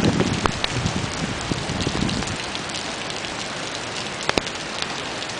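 Steady rain falling as Hurricane Sandy approaches, with individual drops ticking sharply on a nearby surface. A low rumble under the rain dies away about two seconds in.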